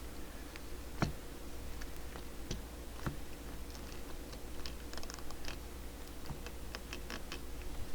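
Irregular small clicks and taps of parts being handled and pressed into place inside a CB radio, the sharpest about a second in, over a steady low hum.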